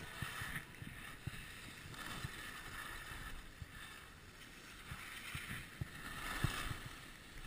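Skis hissing and scraping over packed snow, swelling every couple of seconds with the turns, while wind buffets the camera microphone with low thumps.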